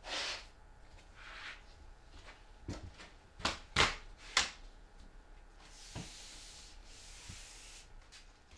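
Plywood circular saw guide being handled on a cutting mat: short scraping slides, then a quick cluster of sharp knocks as it is set down and shifted. A softer knock and a longer sliding scrape come near the end.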